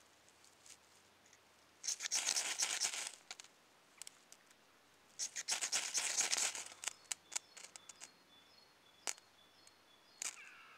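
Ferrocerium rod scraped hard with a striker to throw sparks into a bundle of dry grass tinder. There are two long rasping scrapes, about two and five seconds in, then a few short single scrapes and clicks.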